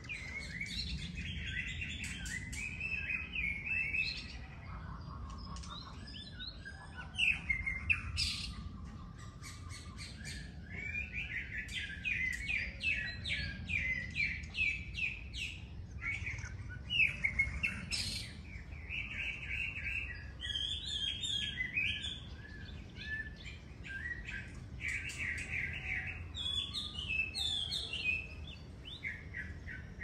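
Several birds singing together in a morning chorus: quick runs of repeated high chirps from different birds overlapping one another, with a lower, steadier whistled phrase briefly about eight seconds in.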